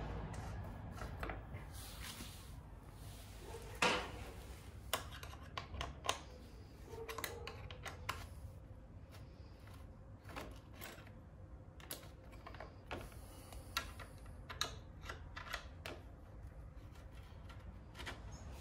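Scattered light clicks and taps of small hand tools on metal fasteners and plastic as the bolts holding a Honda CRF250L dirt bike's radiator shroud are undone, with one louder knock about four seconds in.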